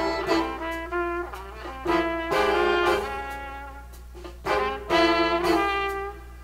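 Jazz big band playing: brass and saxophone sections in held ensemble chords that swell and break off, over bass and drums. The band is louder about two seconds in and again around five seconds.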